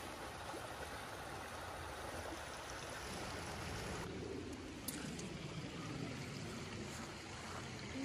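Shallow brook running and trickling over a stony bed: a faint, steady rush of water that softens a little about halfway through.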